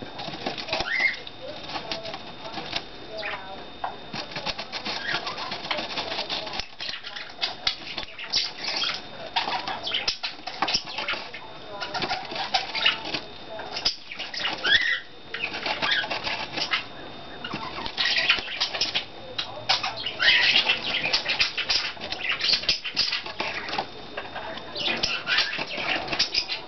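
Small pet bird scratching and pecking at a styrofoam block, a busy run of crackly clicks and scratches, with a few short chirps now and then.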